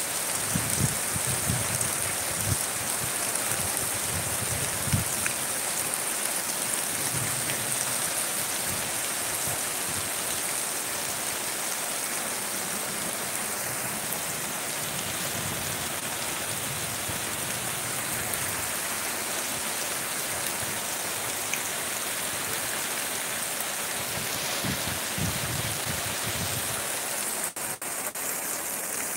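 Heavy rain falling steadily onto open ground, gravel and puddles, a constant even hiss of drops. A few low bumps on the microphone near the start and again near the end.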